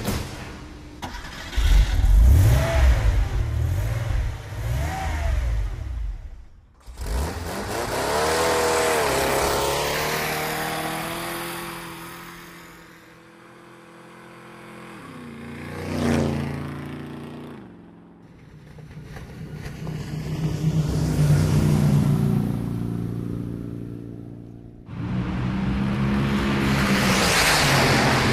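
A run of motor vehicle engine sounds cut one after another: engines revving with rising and falling pitch. About sixteen seconds in, a vehicle passes close by, swelling in loudness and then dropping in pitch.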